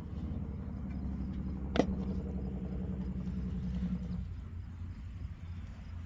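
A small electric motor hums steadily and cuts off about four seconds in. There is a sharp click about two seconds in, and a low rumble underneath throughout.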